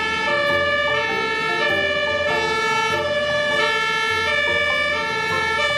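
Fire engine siren sounding steady tones that switch between pitches about every half second.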